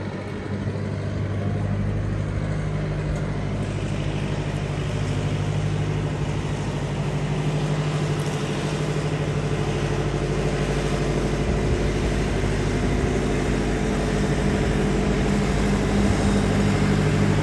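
Engine of a mobile boat hoist (travel lift) running steadily as the hoist drives along carrying a yacht. It grows slowly louder as it approaches.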